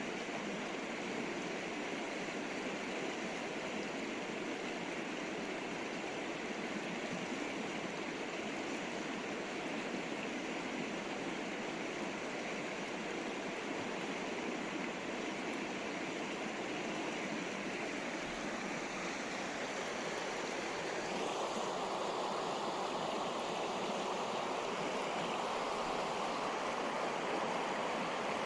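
River water flowing in a steady rush. About three-quarters of the way through, the sound changes and gets a little louder and brighter.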